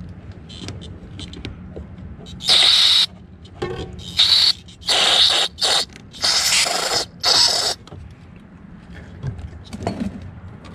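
Aerosol carburetor cleaner sprayed through a bent straw in short hissing bursts, about six of them over five seconds, forcing cleaner up the emulsion tube of a Tecumseh lawn mower carburetor to clear its passages.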